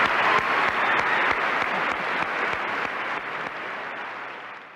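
Auditorium audience applauding, a dense steady clapping that slowly dies down and fades out near the end.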